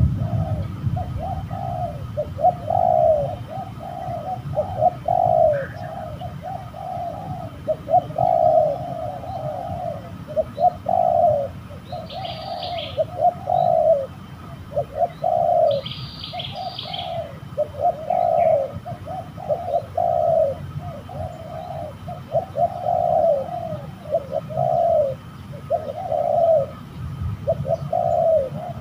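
Spotted dove cooing over and over, a long run of low coos one after another, over a low steady rumble. A few higher chirps from another bird come in around the middle.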